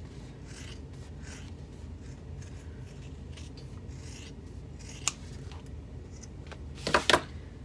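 Fabric scissors snipping repeatedly through the layered seam allowance of a sewn bag flap, trimming it. There is a sharp click about five seconds in and a louder clack near the end.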